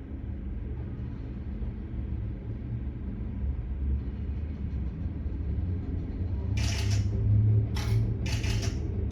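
Background score: a low, steady rumbling drone, joined about two-thirds in by short hissing percussive hits repeating about once or twice a second.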